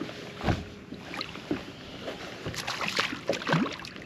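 An angler on a bass boat's deck landing a hooked spotted bass at the side of the boat: a dull thump about half a second in, then a run of short clattering, splashy sounds near the end as the fish is brought to the gunwale.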